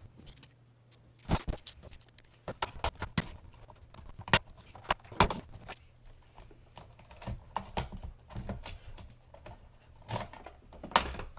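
Irregular sharp clicks and knocks of a hoverboard being taken apart by hand, its parts handled and pried at while digging in toward the battery.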